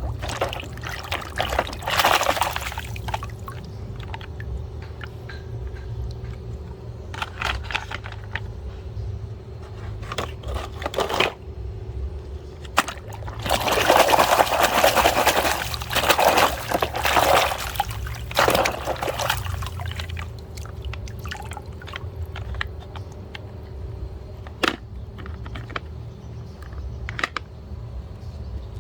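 Water pouring and splashing in bursts over muddy toys being washed, the longest and loudest stretch near the middle, with small clicks and knocks between.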